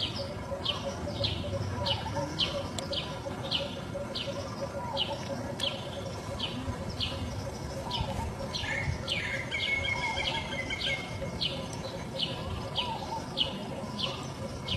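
A bird calling over and over, about two short, sharp, falling chirps a second.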